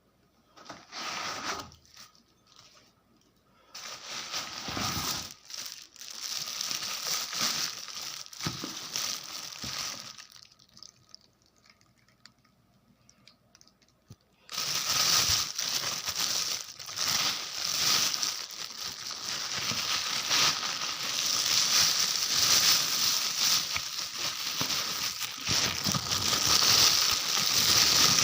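Plastic packaging crinkling and rustling as it is handled, in short bursts at first, then louder and continuous from about halfway through.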